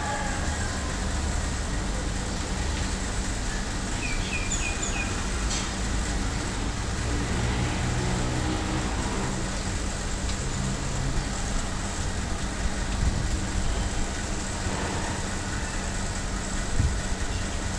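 Steady low rumble with a constant hum underneath. A quick run of four high chirps comes about four seconds in.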